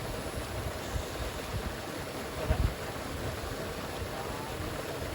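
Steady rush of a rain-swollen river's flowing water, with uneven low rumbles and a single low thump about two and a half seconds in.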